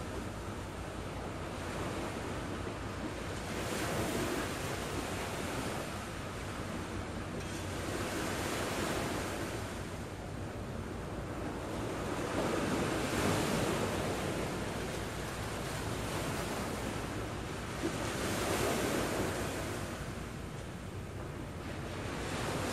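Small waves breaking and washing onto a sandy beach, the surf swelling and fading every four to five seconds.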